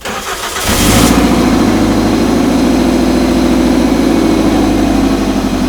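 Toyota MR-S's 1.8-litre four-cylinder engine turning over briefly and catching well under a second in, then running steadily and loudly with an even pulse: the restored car started and running again.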